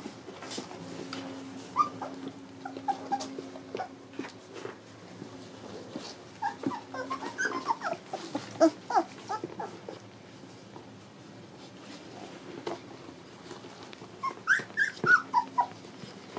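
Young puppies whimpering and squeaking in short high cries that fall in pitch, in bouts: a few early on, a dense cluster about six to nine seconds in, and another near the end. Light scuffling and knocks from the puppies moving about on the bedding.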